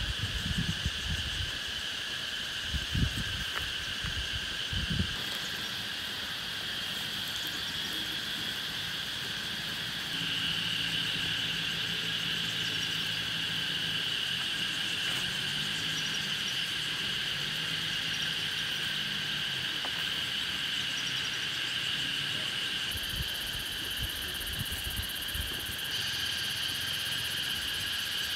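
A steady, high-pitched chorus of calling insects and frogs, with low thumps in the first few seconds and a faint low hum through the middle.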